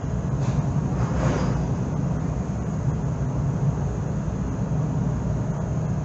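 Steady low engine drone on a ferry's car deck, with a brief hiss about a second in.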